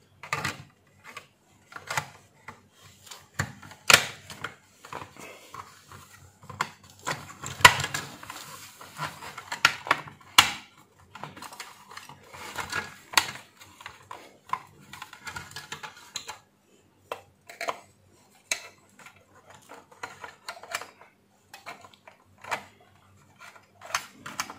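Irregular plastic clicks, knocks and light rattling as a steam iron's plastic handle housing and its spray and steam pump buttons are handled and fitted back into place. The clicks bunch together in the middle, with one sharp snap about ten seconds in.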